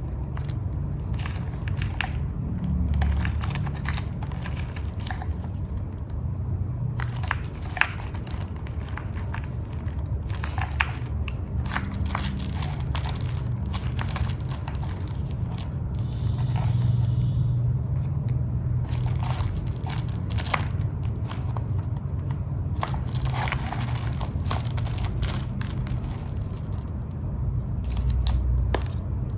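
Paper being handled up close: irregular crinkling and rustling with small ticks and crackles, as sheets and journal materials are worked by hand, over a steady low rumble.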